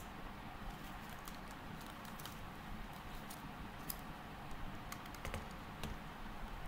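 Typing on a computer keyboard: scattered, irregular key clicks over a steady background hiss.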